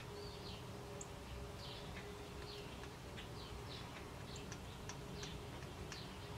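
Faint bird chirping: many short, quick chirps, irregularly spaced, over a faint steady hum.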